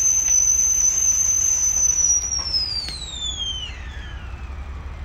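Kelly Kettle Scout whistling shrilly as the water boils hard. About two and a half seconds in, the whistle slides steadily down in pitch and fades away as the kettle comes off the fire.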